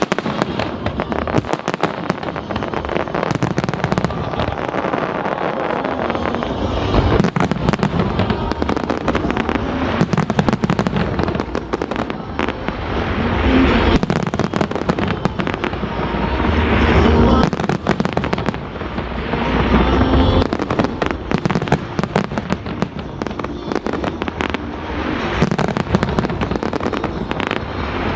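Fireworks display going off continuously: a dense run of bangs and rapid crackling shells, with several louder swells of bursts.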